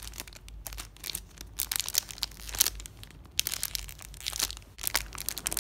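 Clear plastic packaging crinkling as hands turn over and press a bagged squishy toy, in a run of irregular crackles.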